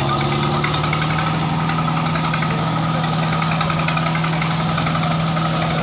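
Diesel tractor engines running flat out under full load in a tractor tug-of-war, a loud steady drone held at high revs as the tractors strain against each other.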